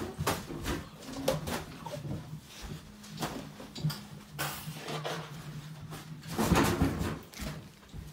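Clicks, knocks and clatter of things being handled at a kitchen sink, with louder noisy rushes about four and a half and six and a half seconds in.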